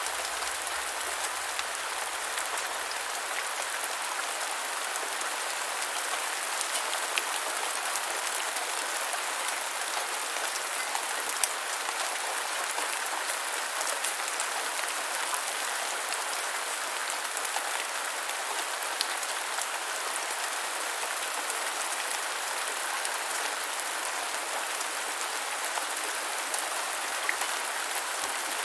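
Steady light rain falling on a surface, an even hiss with scattered individual drops ticking.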